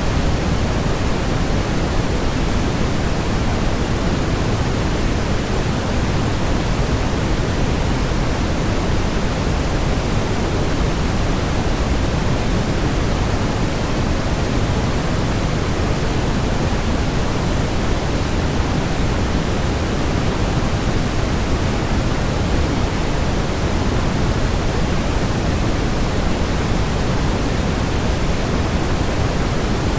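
Waterfall white noise: a steady, unchanging rush of falling water, fuller in the low end than a hiss.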